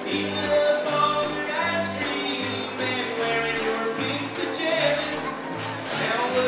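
Live band playing an upbeat song: a man singing with an acoustic guitar, backed by an electric bass walking through its notes and a drum kit keeping a steady beat.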